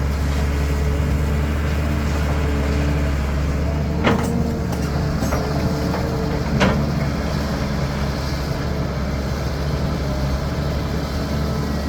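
CAT 320D excavator's diesel engine running steadily under work, with two sharp knocks about four seconds in and again about two and a half seconds later, and a few fainter clicks between them.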